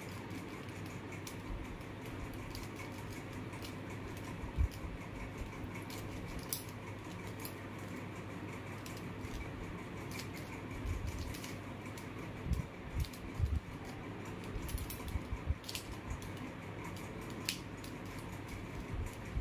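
Plastic mirror cube being turned by hand: irregular quick clicks and clacks as its layers turn, with a few dull knocks, over a steady room hum.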